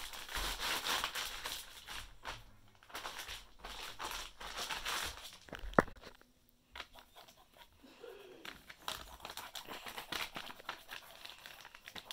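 Large plastic zipper storage bag crinkling and rustling as it is stomped on with bare feet and pressed by hand, with one sharp click about six seconds in.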